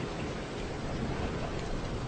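Steady heavy rain with a low rumble underneath.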